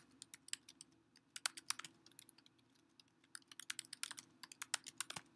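Typing on a computer keyboard: quick, uneven keystrokes, thinning out for about a second around the middle before picking up again.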